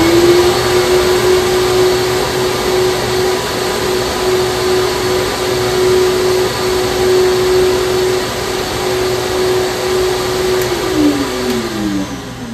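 Hurricane Black Box CNC vacuum hold-down unit running with both motors on, a loud steady whine over rushing air as it pulls suction through the open table zones. The second motor is just reaching speed at the start. About ten and a half seconds in, both are switched off one after the other and wind down with a falling whine.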